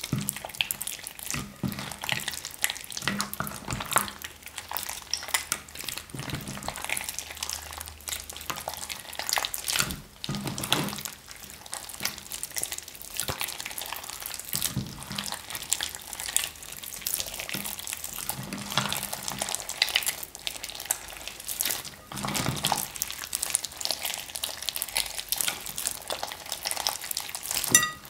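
Sticky slime mixed with clay and small beads being squeezed, stretched and folded by hand, giving a continuous run of wet squelches, pops and crackles.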